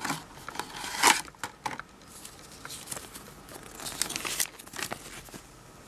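Folded paper leaflet rustling and crinkling as it is handled and unfolded, in irregular bursts, loudest about a second in and again around four seconds in.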